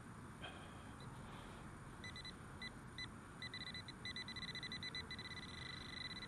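Fisher F19 metal detector sounding its high target tone over a buried target that reads in the pull-tab range, most likely while pinpointing it. The tone comes in as short broken beeps about two seconds in and settles into a near-steady tone near the end.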